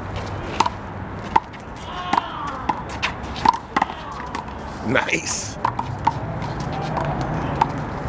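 One-wall handball rally: a rubber handball slapped by hands and smacking off the concrete wall and court, an irregular run of sharp smacks every half second or so.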